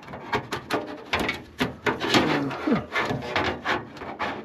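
A computer case fan knocking and scraping against the case as it is pushed and worked into a tight spot, with many short clicks and rubs.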